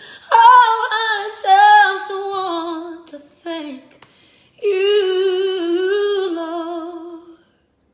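A woman singing unaccompanied: a few short sliding vocal runs, then a long held note with vibrato that fades out near the end.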